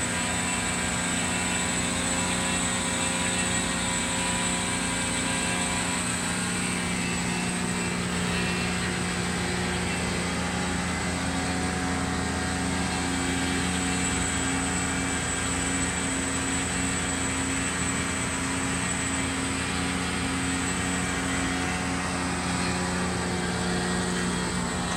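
Cosen C-250NC horizontal bandsaw, with its 3 HP main drive, running steadily: an even machine hum made of several low steady tones, with a high whine above it.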